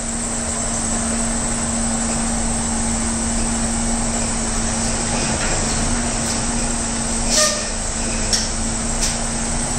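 Freightliner Cascadia semi-tractor's diesel engine running as the truck rolls slowly, with a steady hum. A short sharp sound comes about seven and a half seconds in, with two fainter ticks after it.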